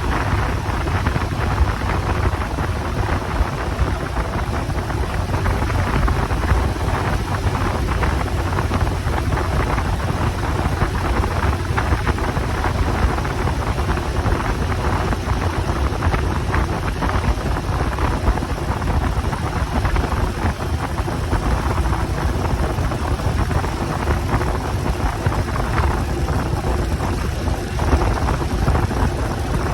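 Wind rushing over the microphone on a moving motorcycle, with the engine and road noise underneath, steady and without a break.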